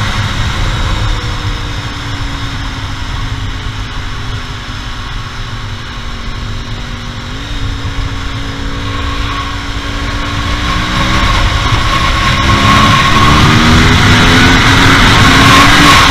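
2009 Yamaha R1's crossplane inline-four through a full Akrapovic exhaust, heard from on the bike: the engine note sinks slowly as the bike slows, the revs jump up with a downshift about halfway, then the bike accelerates in short rising steps through the gears, louder toward the end, over a low rumble of wind.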